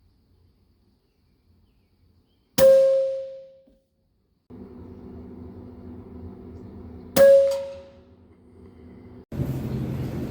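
Two shots from a .22 Hatsan PCP air rifle, about four and a half seconds apart. Each is a sharp crack with a metallic ring that fades within about a second.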